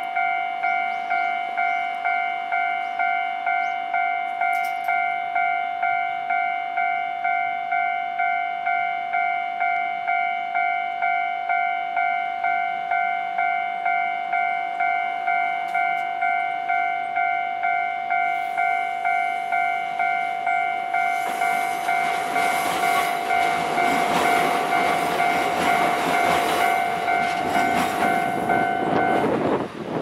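Japanese railway level-crossing warning bell ringing steadily, about three dings every two seconds, while the barriers are down. From about twenty seconds in, a passing train's rumble and rail noise swells up over it, and the bell stops shortly before the end.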